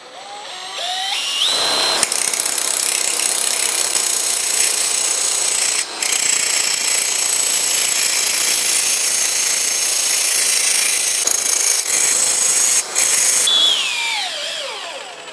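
Angle grinder with a grinding disc spinning up with a rising whine, then grinding the end of a metal meat-mincer auger shaft as it turns in a drill chuck: a loud, steady grinding noise for about eleven seconds with two brief breaks, turning the shaft down to a smaller diameter. Near the end it winds down with a falling whine.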